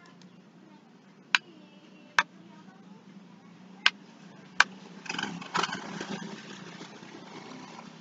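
Four sharp single clicks of a computer mouse, in two pairs, over a steady low hum.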